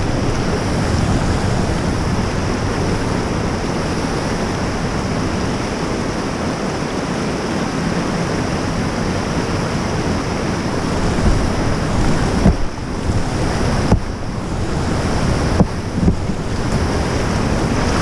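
Steady rushing of river whitewater, with a few short knocks between about twelve and sixteen seconds in.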